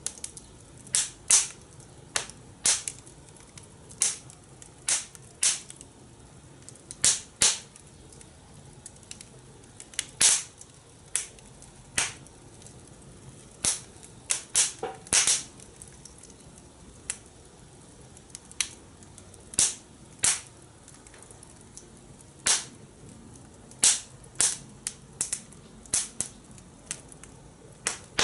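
Fire in a fire pit crackling, with irregular sharp pops about one or two a second, some in quick clusters.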